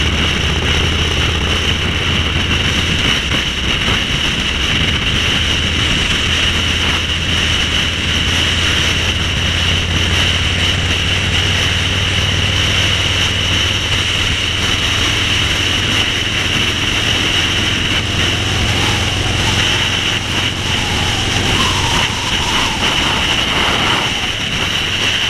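Cruiser motorcycle engine running steadily at cruising speed, heard from the rider's seat with wind noise over it.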